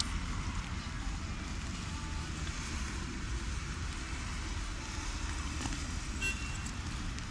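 Steady road traffic noise, car tyres hissing on wet tarmac over a low rumble.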